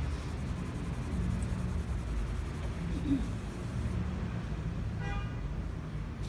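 Steady low background hum, with a brief horn-like toot about five seconds in.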